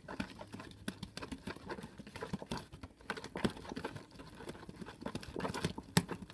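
A mixing utensil stirring clear glue and borax activator in a plastic tub: irregular clicks, taps and scrapes of the utensil against the plastic as the glue is being activated into slime, with one sharper knock near the end.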